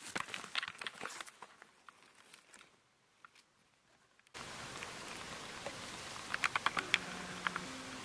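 Crackling rustles and small clicks. After an abrupt cut a little past halfway comes a steady hiss, with a quick run of sharp clicks near the end.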